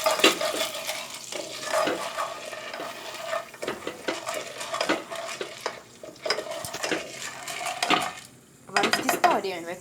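A spoon stirring popcorn kernels in melted butter in a pot on high heat: repeated scrapes and clinks against the pot over the butter sizzling, the kernels not yet popping. The stirring pauses briefly near the end.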